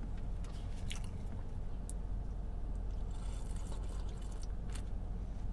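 A person sipping birria consommé from a foam cup, with a soft slurp about three seconds in and small clicks from the mouth and cup, over a steady low hum.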